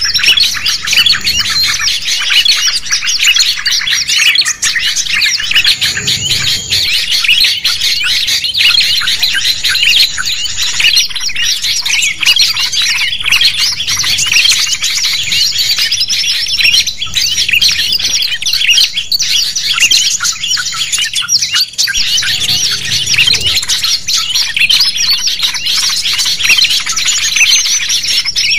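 Dense, unbroken chorus of many small songbirds chattering, chirping and trilling at once, mixed together as a bird-trapping lure ('suara pikat') meant to draw wild birds in.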